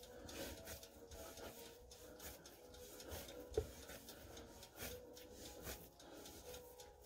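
Hands kneading and shaping bread dough on a counter: faint, irregular rubbing and pressing, with one sharp knock about three and a half seconds in.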